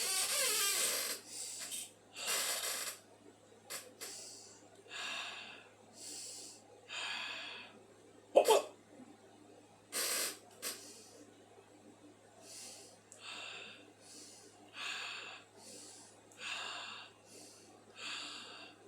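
A person with the hiccups breathing heavily in and out, about one breath a second, with one sharp, loud hiccup a little under halfway through.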